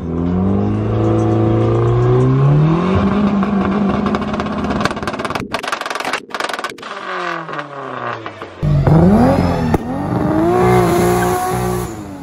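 Modified car engine revving: the pitch climbs, holds high for a few seconds, then dies away in a long falling glide. About two-thirds of the way through, another engine's revving cuts in sharply, its pitch swinging up and down.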